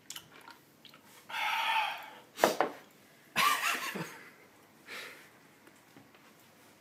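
Two loud breathy blows, with a sharp knock between them about two and a half seconds in. The breaths come from a mouth burning after extremely hot chicken wings.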